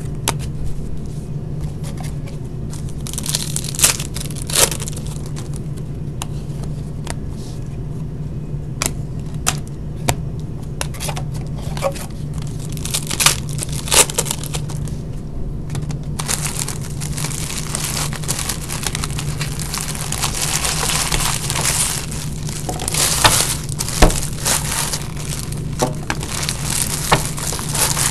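Trading-card box and pack wrappers being torn open and crinkled by hand, with scattered sharp clicks and crackles that turn into denser, continuous crinkling about halfway through, over a steady low hum.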